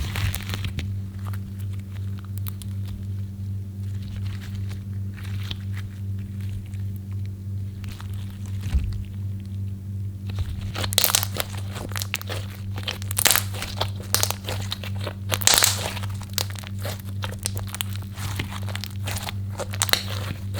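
Slime being worked by hand, squished and stretched, making crackling clicks and pops that are sparse at first and come much thicker from about halfway. A steady low hum runs underneath.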